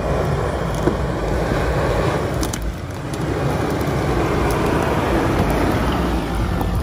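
Ford Ranger ute's engine running at low speed as it crawls up a rutted dirt track and passes close by, a steady low rumble that grows a little louder in the second half. A few sharp clicks sound around the middle.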